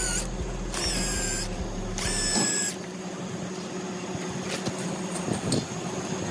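Small handheld power tool, such as a drill, whirring in short bursts of under a second each during the first three seconds, then a few faint clicks.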